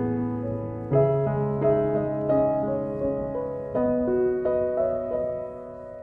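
Background piano music: a slow melody of single notes over held lower notes, with fresh chords struck about a second in and again near four seconds.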